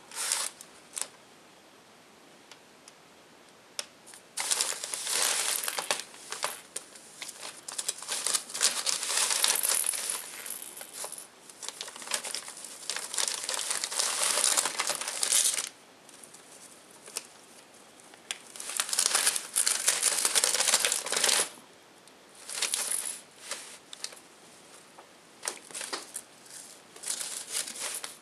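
Crinkling and rustling of wrapping and packaging from a Christmas stocking as kittens paw and tug at it, in irregular bursts with short quiet gaps.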